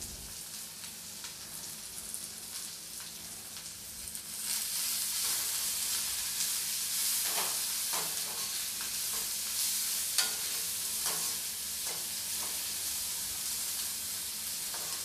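Chopped onion, garlic and green chillies sizzling in a little oil in a kadai while a perforated metal spoon stirs them, scraping and tapping against the pan now and then. The sizzle grows louder about four seconds in.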